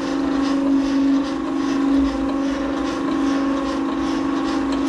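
Motor-driven feed machine running with a steady, unbroken hum while it fills feed into a bag.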